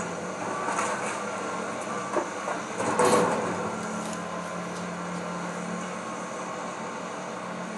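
Excavator's diesel engine running steadily while it tears into the wood-framed house, with a few sudden cracks and crashes of breaking timber, the loudest about three seconds in.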